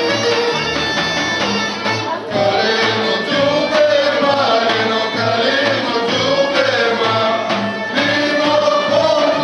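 Bulgarian folk dance music: a group of voices singing over instruments, with a steady, even drum beat. About two seconds in there is a brief break, after which the music comes back slightly louder.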